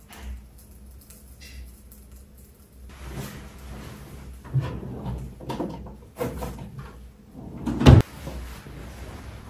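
Household knocks and shuffles of a person moving about a room, with several short bumps from about three seconds in and one heavy thud just before the end.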